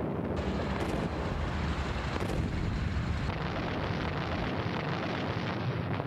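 Artillery fire and shell explosions: a continuous low rumble, with a louder blast setting in about half a second in and a couple of brief crackles after it.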